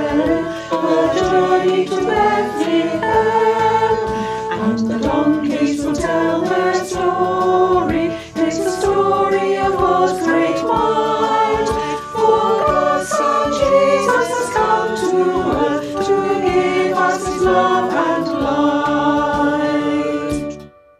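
A choir singing a Christian song about the Easter story, with the lines "It's story of God's great might" and "To give us his love and light". The singing ends cleanly near the end, followed by silence.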